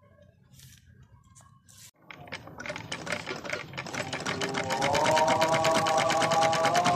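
Black Singer sewing machine starting to stitch about two seconds in: a rapid, even clatter that speeds up and grows louder, then runs steadily with a faint rising whine.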